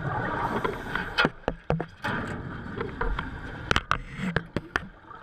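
Irregular sharp knocks and clanks over a steady hiss of water: a great white shark striking and biting a metal shark-diving cage.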